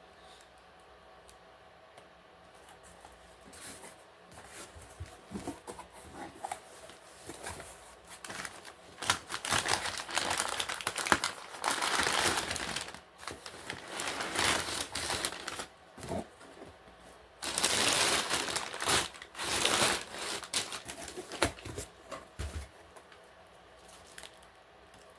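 Packaging being opened and handled: crinkling and rustling in irregular bursts, loudest around the middle.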